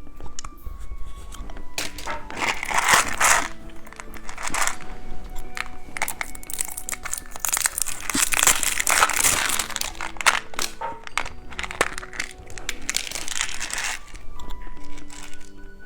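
Plastic candy wrapper crinkling and crumpling in several bursts a second or so long, the longest about halfway through, over soft background music.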